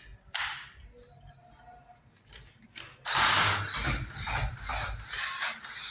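Ratcheting mechanism clicking: one short stroke about half a second in, then a loud run of quick repeated strokes, roughly three a second, starting about three seconds in.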